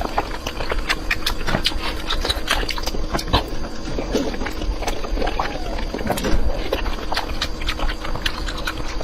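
A person eating close to the microphone: wet chewing and smacking, a steady stream of small sharp clicks with a few brief low mouth noises.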